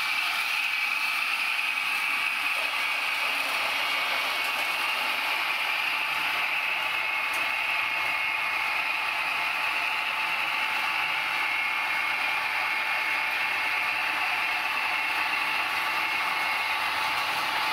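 H0-scale Märklin model trains running on the layout's metal track: a steady mechanical running noise of small motors, gears and wheels on the rails, unchanging throughout.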